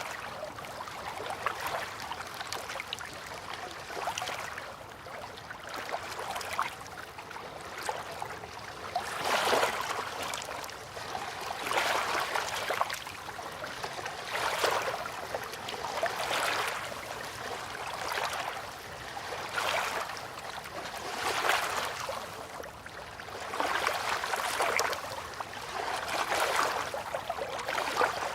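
River water lapping at the bank in small waves, swelling and falling back about every two seconds.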